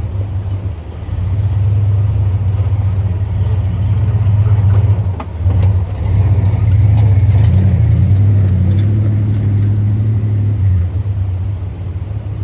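Jeep engine pulling under load on a rough off-road trail, its low drone rising and falling with the throttle. Two sharp knocks come about five seconds in.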